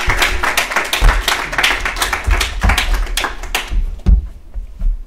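Audience applauding, a dense run of hand claps that thins out and fades away about four seconds in.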